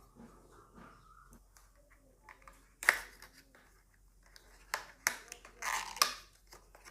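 Handling noises from unboxing retail RAM packaging: a single sharp click about three seconds in, then a second or so of rustling and clicking of the packaging near the end.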